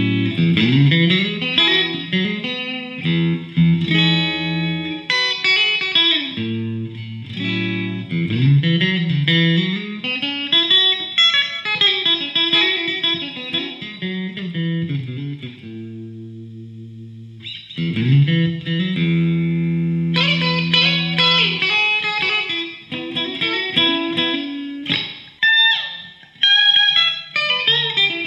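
Electric guitar outro music: melodic lead lines over sustained low notes, easing off to a quieter held passage about two-thirds of the way through before the playing picks up again.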